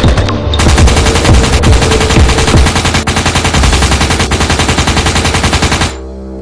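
Automatic rifle fire: one long, rapid burst that starts about half a second in and cuts off suddenly near the end.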